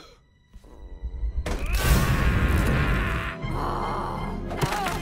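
Animated-film soundtrack: after a brief hush, a house of playing cards is swept off a table, the cards clattering and scattering for about two seconds, over music and a strained, groaning voice.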